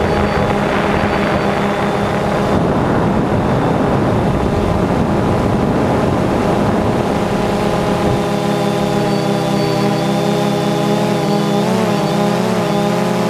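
Small drone's electric motors and propellers whining, heard from the drone itself, with a rush of wind noise over the first half. After that it settles into a steadier multi-tone whine that dips and rises in pitch near the end.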